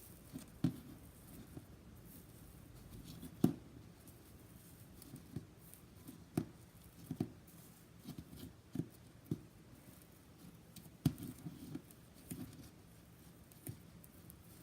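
Hands poking and squeezing iceberg slime, its hardened crust giving irregular soft cracks and taps, about one every second.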